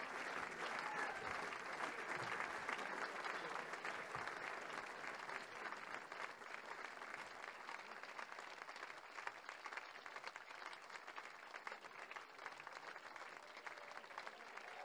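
Audience applauding, the clapping gradually fading over several seconds.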